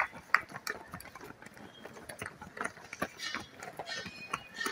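Runners' footsteps on a dirt track, a few quick footfalls a second, with a last few claps from onlookers right at the start.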